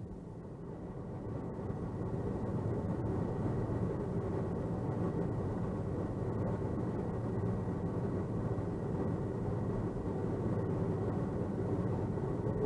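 Steady low rumble inside an Airbus A330's cabin from its Rolls-Royce Trent 700 engines running at low power before takeoff, rising slightly about a second and a half in.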